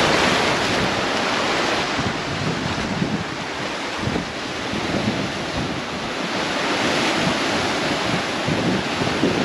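Small waves breaking and washing over a coral-rock shore, with wind noise on the microphone.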